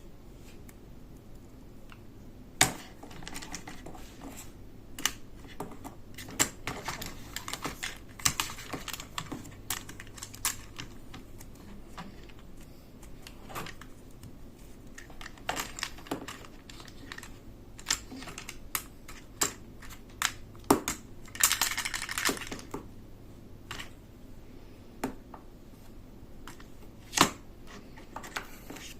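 Plastic toy parts and packaging being handled: irregular small clicks, taps and knocks, with a short rustle about three-quarters of the way through.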